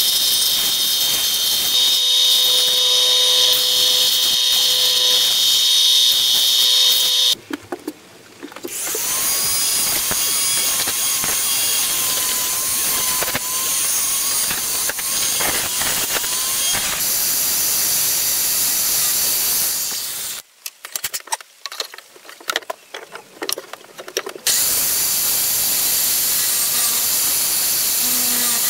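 Workshop power tools shaping wooden parts in turn: a Ferm bench belt sander running with wood pressed to the belt, then a flexible-shaft rotary tool grinding a small wooden piece, then, after a few seconds of scattered clicks and knocks, a bench drill press boring into a wooden wing.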